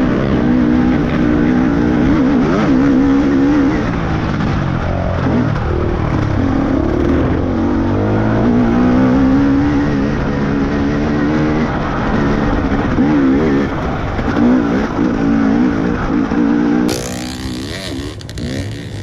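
Off-road trail motorcycle engine running, its revs rising and falling as it rides. About seventeen seconds in, the sound cuts off abruptly to something different.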